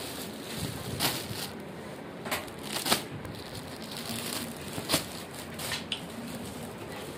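Clear plastic bags around packed shirts crinkling in a few irregular, sharp crackles, the loudest about three seconds in, over steady background noise.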